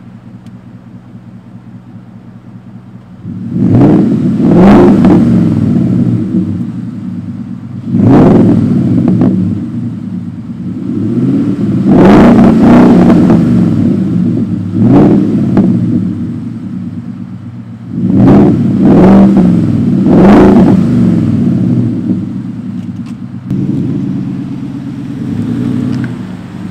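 Ford F-150's 5.0 V8 exhaust, with the resonator deleted and a Magnaflow muffler, idling and then revved about six times, each rev rising and falling back to idle.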